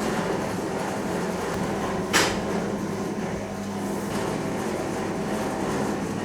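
A machine running steadily with a low hum, with one sharp knock about two seconds in.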